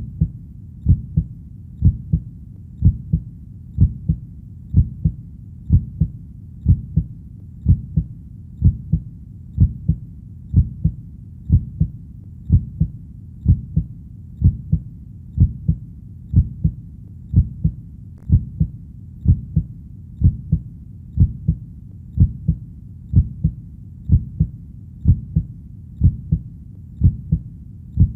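Heartbeat, a steady lub-dub of paired low thumps repeating evenly about once a second.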